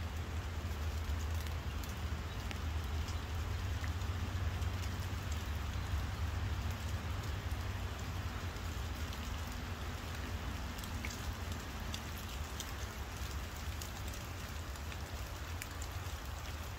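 Steady light rain, with scattered small drop ticks, over a low, steady rumble.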